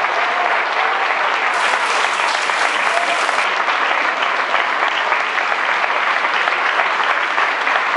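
Audience applauding steadily, dense clapping from many hands at an even level throughout.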